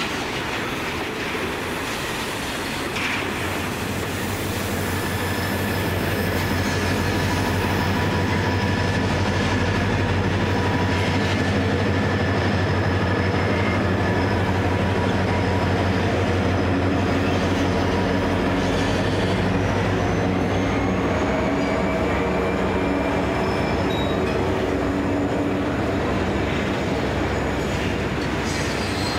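Pacific National's XR and BL class diesel-electric locomotives hauling a loaded grain train under power, their engines running with a deep steady drone and a thin whine, along with the hopper wagons rolling over the rails. The sound swells for several seconds toward the middle, then eases, and the whine rises in pitch near the end.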